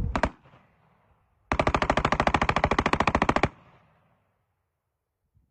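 Rapid gunfire: a quick pair of shots at the start, then a continuous string of shots for about two seconds at roughly fifteen rounds a second, as in a magazine being dumped, which stops abruptly.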